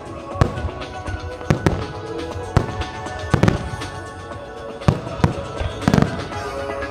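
Aerial firework shells bursting in a music starmine, about ten sharp bangs at irregular intervals with a cluster near the end. Music plays steadily underneath.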